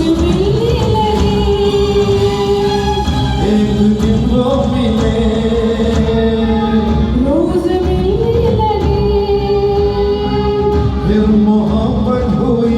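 Music from a Hindi film song performance: a melody of long held notes that glide up and down between pitches, over a steady backing.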